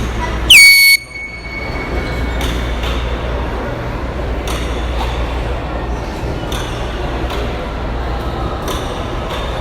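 Handheld air horn giving one short, very loud blast about half a second in, its pitch jumping up at the start and then holding steady. A steady low rumble with scattered clinks follows.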